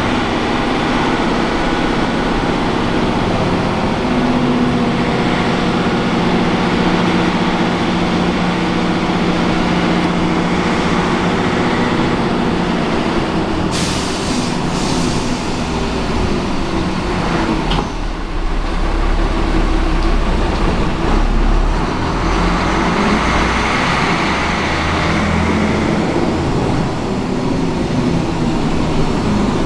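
Fiat 418 AC city bus heard from inside the passenger cabin: the diesel engine running under way, its note shifting up and down as the manual gearbox is worked. About halfway through comes a sharp hiss of released compressed air.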